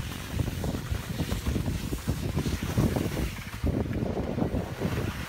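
Wind buffeting the microphone: an uneven low rumble that rises and falls in gusts while skiing over the snow.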